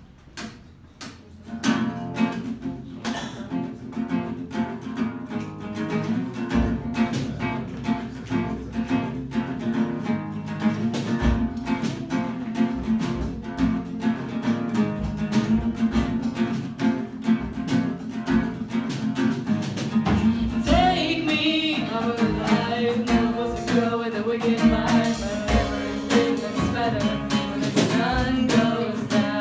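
Acoustic guitar starts strumming chords about a second and a half in. A woman starts singing over it about two-thirds of the way through.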